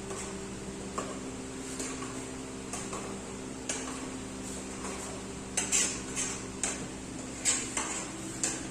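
A spoon clinking and scraping against a cooking pot as thick dal is stirred, in scattered knocks that come quicker in the second half. A steady low hum runs underneath.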